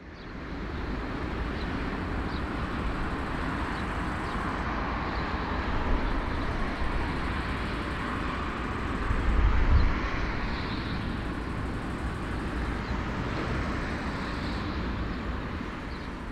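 The jet engines of an Airbus A340-300 running on the ground: a steady jet rush and hum, with a deep rumble that swells briefly about ten seconds in.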